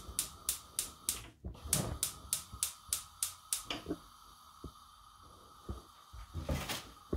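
Gas hob's spark igniter clicking rapidly, about three clicks a second, while the burner knob is held in to light it; the clicking stops a little under four seconds in, and a faint steady hiss follows with a few soft knocks.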